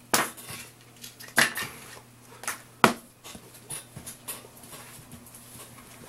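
Handling noise: a few sharp knocks and clatters, the loudest a little before the three-second mark, with faint ticks and rustles in between.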